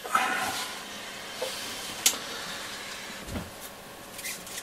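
Steady hiss, with a few light clicks and knocks as a Nordmende Transita transistor radio is picked up and turned over in the hands, the sharpest click about two seconds in.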